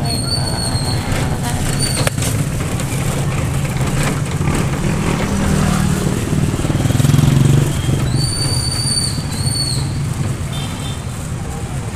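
Small motorcycle engine running steadily under a ride through street traffic. Short high whistle-like tones come once near the start and again about two-thirds of the way through.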